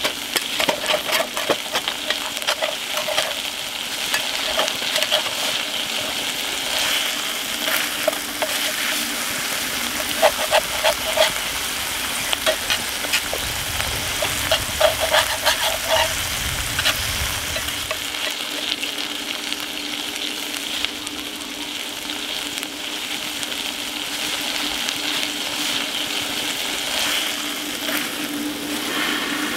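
Rice and spicy chicken sizzling as they are stir-fried in a cast-iron skillet, with a wooden spatula scraping and clicking against the pan. The scraping is busiest over the first two-thirds, then the sizzle settles to a steadier hiss.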